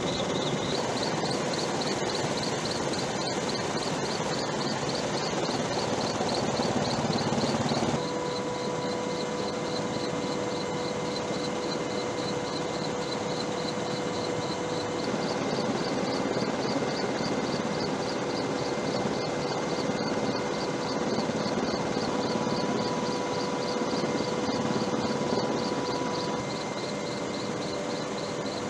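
Steady helicopter engine and rotor noise with a fast, even pulsing. The sound changes abruptly about eight seconds in, where a steady hum joins it.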